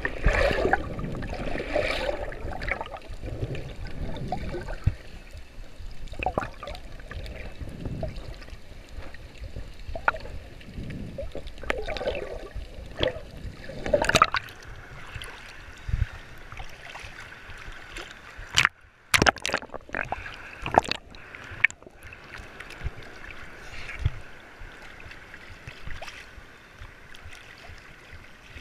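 Water gurgling and sloshing around a waterproof action camera held just under the surface in shallow sea water, with scattered splashes and knocks, and a cluster of sharp ones about two-thirds of the way through.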